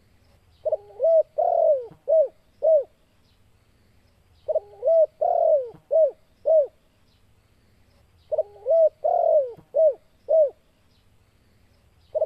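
Spotted dove cooing its 'kuk 2' song, repeated three times about four seconds apart. Each phrase is five short coos, with a longer, falling coo in the middle.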